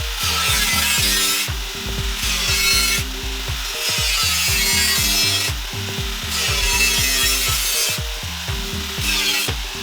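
Repeated long scraping strokes of a hand tool on a hard material, about six strokes with short pauses between them, over background music with a steady bass line.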